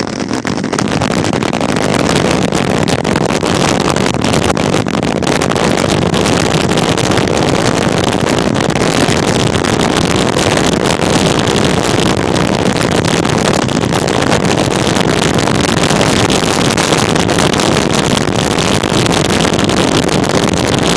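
Scooter wheels rolling fast on asphalt: a loud, steady rolling noise picked up through the tablet pressed against the scooter.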